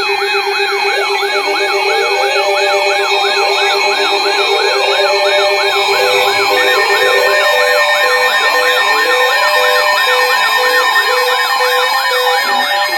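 Several NOAA weather radios alarming at once: a fast rising whoop siren repeating nearly three times a second over steady alert tones and pulsing beeps. A low beep stops about halfway through as a higher beep starts.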